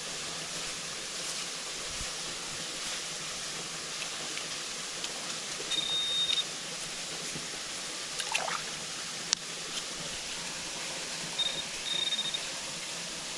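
Metal detector giving a high, steady beep twice, the second time as two short tones, signalling a metal target in the dig, over steadily running creek water. A brief scrape and a sharp click come in between.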